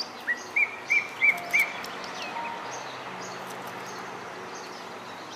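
A bird calls four short, evenly spaced clear notes in the first two seconds, over fainter high chirps of other small birds.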